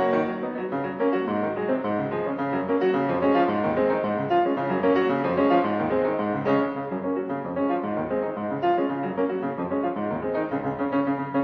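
Background music played on piano, a steady run of many notes.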